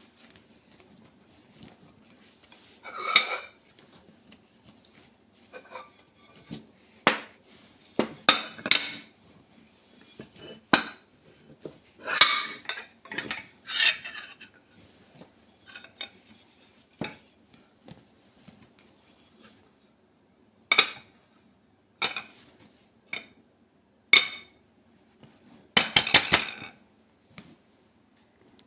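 Dishes and cutlery clinking and knocking: irregular knocks and clinks of metal and crockery, with a quick run of about six taps near the end.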